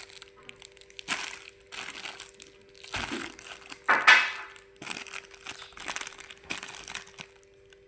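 Close-miked eating of jajanan pasar, Indonesian market snacks: irregular crunching bites and chewing, the loudest about four seconds in, over a faint steady hum.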